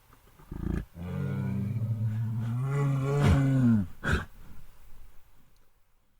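Bear vocalising: a short low grunt, then one long, low roar of about three seconds whose pitch rises slightly and falls away at the end, followed by a short huff.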